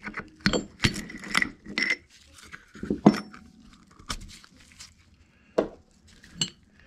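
Metal rod and valve parts clinking and scraping against an FMC John Bean R10 pump head as the pressed-in valve seats are wobbled loose: a quick run of clinks over the first two seconds, then four separate sharp clinks over the rest.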